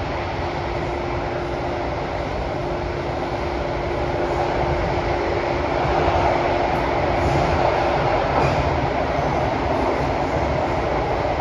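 Running noise of a Kawasaki & CRRC Sifang CT251 metro train, heard inside the passenger car: a steady rumble of wheels on rail. A thin steady whine sits under it until about eight seconds in, and the noise grows a little louder about halfway through.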